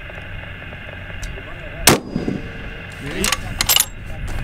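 A single shot from a bolt-action precision rifle about two seconds in, sharp and the loudest sound, over a steady background. A few short clicks and a faint voice follow near the end.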